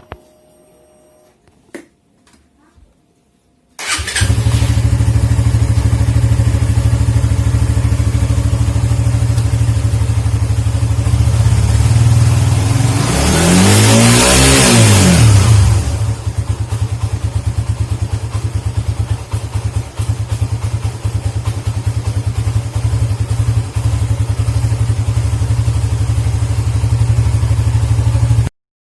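Suzuki GSX motorcycle's fuel-injected engine starting about four seconds in and idling, then revved once and let fall back to idle. After the throttle is closed the idle runs unevenly and falters as if about to die, which the owner blames on a dirty idle speed control (ISC) valve. The sound cuts off abruptly near the end.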